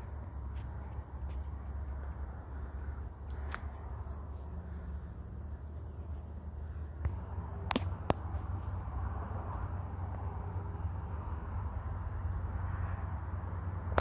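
Steady, high-pitched insect trill, a cricket-like chorus that runs on unbroken, over a low steady rumble, with a few faint clicks.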